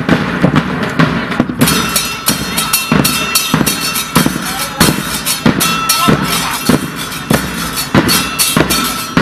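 Argentine murga bass drums (bombos con platillo) playing a fast, driving syncopated rhythm of sharp strokes, several a second.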